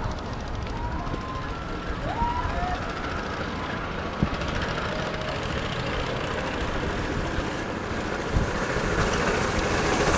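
Go-kart engines running steadily, getting louder near the end as the karts come closer.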